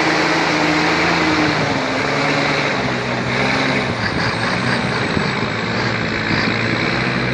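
Diesel engine of a log-loaded semi truck running hard under load, its engine note shifting in pitch a few times as the revs change.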